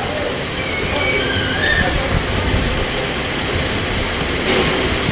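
Floodwater rushing and churning, a steady rushing noise. There are a few faint high gliding tones in the first two seconds and a brief louder burst about four and a half seconds in.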